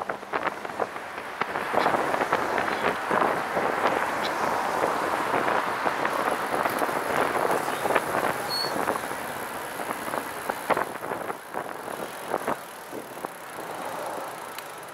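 Riding noise of a Catrike 700 recumbent trike on asphalt: a steady rush of tyre and wind noise, broken by irregular small knocks and clicks, easing off somewhat near the end.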